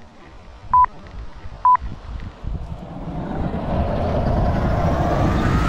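Countdown sound effects: two short, high beeps about a second apart, then a swelling whoosh with a whine sliding steadily upward, growing louder over the last three seconds.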